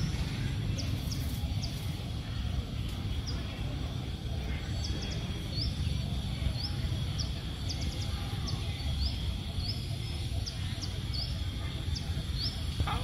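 A series of short, high, rising chirps, about one or two a second, over a steady low rumble.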